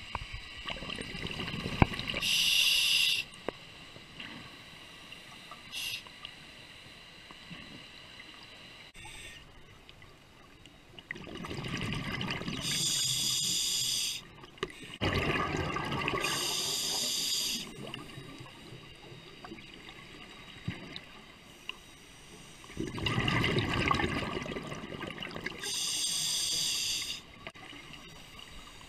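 Scuba diver breathing through a regulator underwater: several breaths a few seconds apart, each a long bubbling gush with a sharp hiss, separated by quieter stretches.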